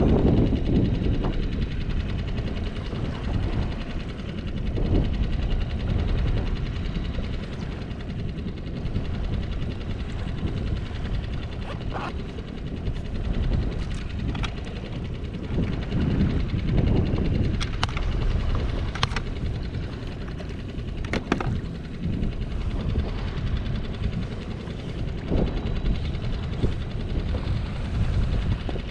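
Wind buffeting the microphone on open water, an uneven low rumble that swells and eases. A few sharp clicks and knocks come in the middle, from gear being handled on the boat.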